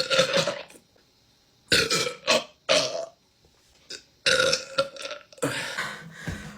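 A woman belching again and again: five or six separate burps, each under a second, with short silences between them; the last one runs longer.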